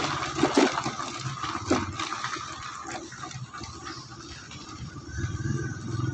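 Wind rushing over the microphone with tyre and road noise from an electric bicycle riding over a rough, unpaved lane. A few knocks from bumps come in the first two seconds, and a low rumble grows louder near the end.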